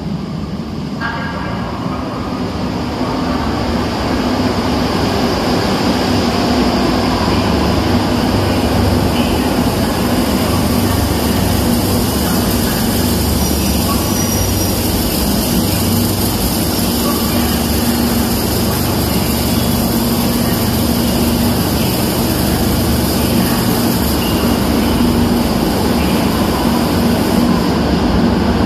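Madrid Metro electric train running on Line 5: wheel-and-rail running noise with a steady motor hum. It builds over the first few seconds, then holds loud and even.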